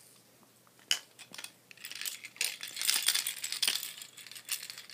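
Plastic baby toys handled and shaken, clicking and rattling: one sharp click about a second in, then dense, busy rattling from about two seconds on.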